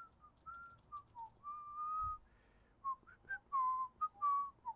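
A man whistling a tune, a run of short notes and slides broken by a few longer held notes.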